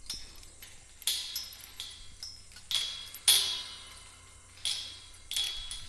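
Metal clinks and knocks against a woven-wire fence, about eight irregular strikes, each ringing briefly.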